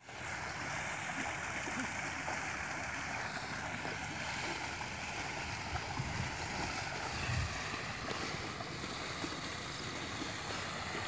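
Steady outdoor noise of wind rumbling on the microphone over the sloshing of water buffalo wading through a shallow muddy pond, swelling briefly about six and seven seconds in.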